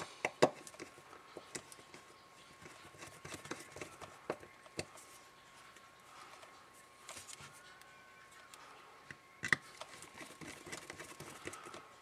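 Scattered small clicks and taps of a plastic handheld radio case and a small screwdriver being handled while the case is screwed back together. Two sharper clicks stand out, one just after the start and one about three-quarters of the way through.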